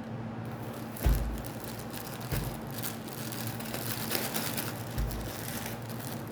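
Plastic packaging of sanitary pads rustling and crinkling as it is handled, with a few low bumps, over a steady low hum.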